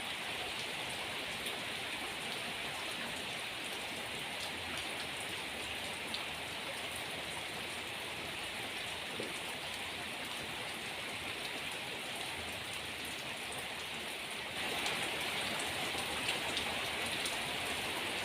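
Rain falling steadily, a continuous hiss that grows a little louder about fourteen seconds in.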